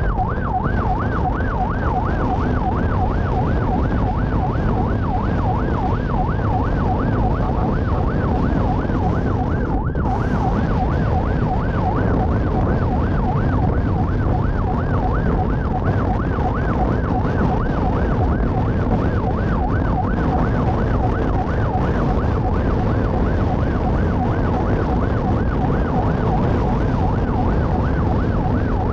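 Police escort motorcycle's electronic siren in a rapid yelp, its pitch sweeping up and down about three to four times a second, over a steady low rumble.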